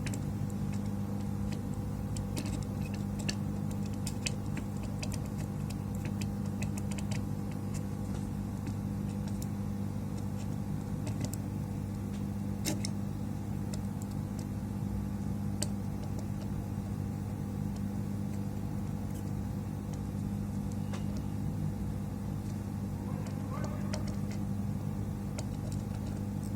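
Hot-air rework station blowing steadily on a circuit board while a surface-mount SIM card connector is heated to melt its low-melt solder, with light scattered clicks and taps of tools on the board.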